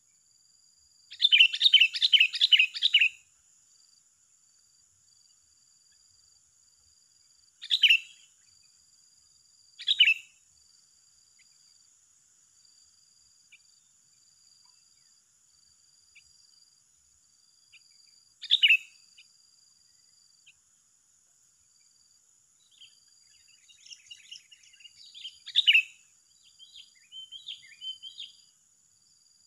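Sooty-headed bulbuls calling: a rapid run of about seven notes near the start, then single sharp calls every few seconds and softer chattering near the end. A steady high insect drone runs underneath.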